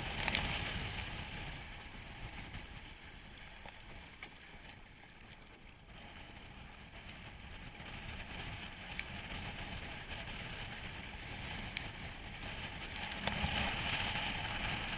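Water rushing and splashing along the hull of a Hobie Tandem Island sailing kayak moving under sail through choppy water, with wind buffeting the microphone. Louder at the start, easing off in the middle, and building again near the end.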